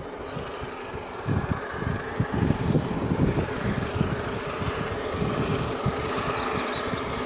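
Three-cylinder LNER A1 Pacific steam locomotive 60163 Tornado approaching at speed, its exhaust and running noise growing steadily louder.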